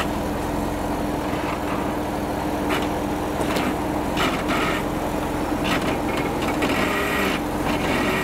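Jeep Wrangler JK Rubicon engine running steadily at low revs while the Jeep crawls up a rock step under load. A few brief sharp sounds come through over the steady hum.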